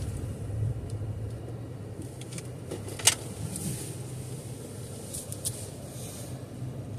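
Car running at low speed, heard from inside the cabin as a steady low hum, with one sharp click about three seconds in.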